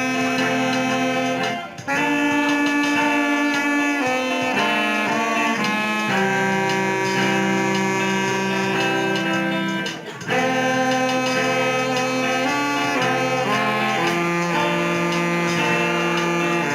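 Church orchestra playing an instrumental hymn in long, held chords that change every second or two, with short breaks in the sound about two and ten seconds in.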